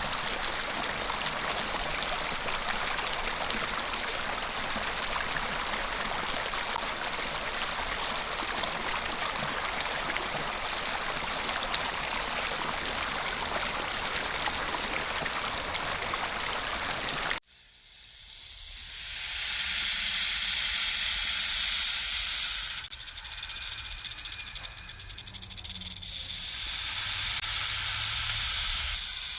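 Steady rushing water, like a stream. About two-thirds of the way in it cuts suddenly to a louder high hiss that swells, dips twice and swells again.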